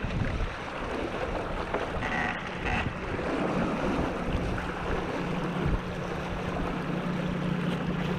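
Wind buffeting the microphone and water rushing along the hull of a J/22 sailboat under way in high wind. A steady low hum joins about three and a half seconds in.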